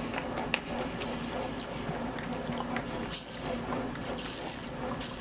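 Close-miked chewing with small wet mouth clicks, then three short slurping sips from a drink about three, four and five seconds in.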